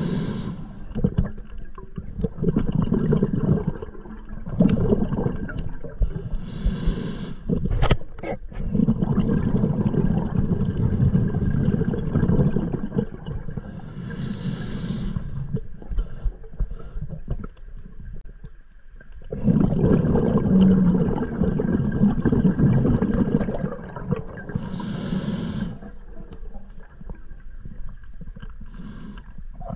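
Scuba diver breathing on an open-circuit regulator underwater. Four short hissing inhales come a few seconds apart, each followed by a long, low bubbling of exhaled air.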